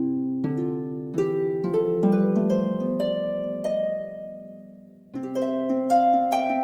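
Relaxing background music of plucked harp notes: a slow phrase of overlapping notes fades away, and a new phrase starts about five seconds in.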